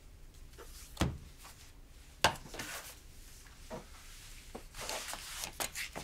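Indoor household handling noises: two sharp knocks, a little over a second apart, like a cupboard or door, then a spell of rustling and light clatter near the end.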